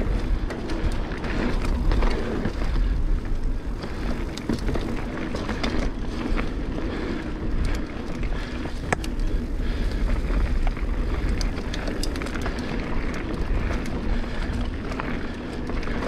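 Mountain bike riding down a dirt trail: tyres rolling over dirt and stones, with scattered sharp clicks and rattles as the bike goes over bumps, and a steady low wind rumble on the microphone.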